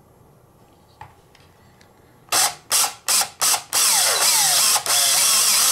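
Cordless drill with a 5/16-inch bit boring through a GoPro Hero2's clear plastic housing: after about two seconds of quiet come several short trigger pulls, then two longer runs near the end as the bit bites into the plastic. The driller thinks the bit is dull.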